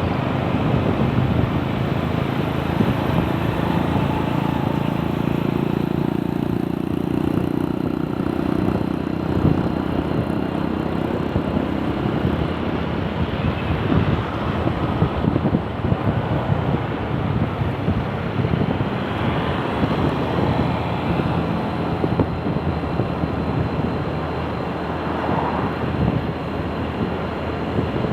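Strong wind buffeting the microphone over the steady rumble of road traffic, with a passing vehicle's engine drone standing out from about four to nine seconds in.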